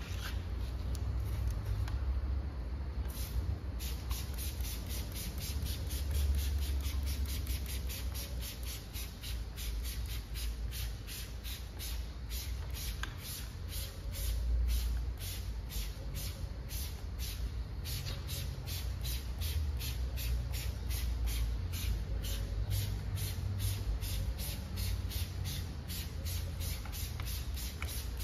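Hand trigger spray bottle pumped over and over, about three squirts a second, misting cleaner onto an alloy wheel, over a steady low rumble.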